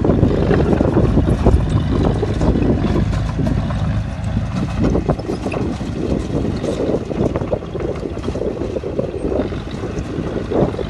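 Bulldozer's diesel engine running steadily, a heavy low machine noise with irregular clattering through it.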